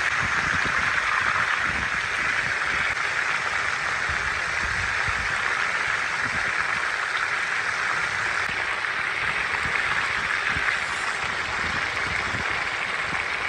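Fish steaks sizzling steadily in hot mustard oil on a large flat tawa griddle, with a fine crackle and spatter as moisture on the fish meets the oil.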